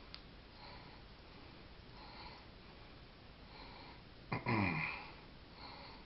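A person breathing through the nose, a soft puff about every one and a half seconds, with one louder, falling snort or sniff about four seconds in.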